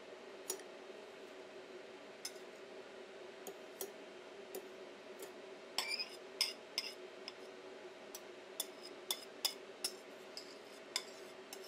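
Scattered light clicks and taps, more of them about six to seven seconds in, as a small bowl of cubed butter is tipped and scraped out into a stainless steel stand-mixer bowl. A steady low hum runs underneath.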